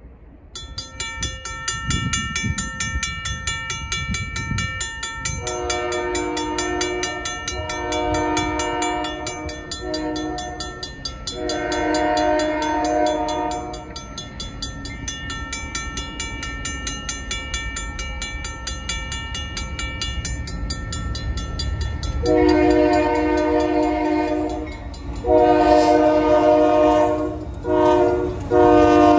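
Safetran mechanical crossing bell ringing at a fast, even rate, starting about half a second in as the crossing activates. Over it, a Union Pacific locomotive's air horn sounds two long blasts, then a long, long, short, long sequence as the engine reaches the crossing, with the train's low rumble beneath.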